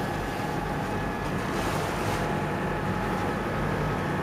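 A boat's engine running steadily, with water rushing along the hull and wind on the microphone.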